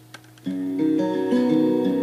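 Music: an acoustic guitar song intro starts about half a second in, with plucked notes moving over held chords.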